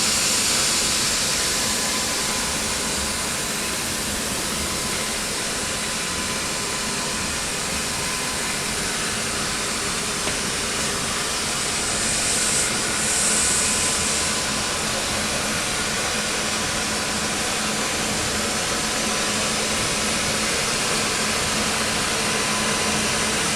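Automatic double-head circumferential welding machine welding a tank seam: a steady hiss from the welding arcs with a faint, even machine hum, swelling briefly about halfway through.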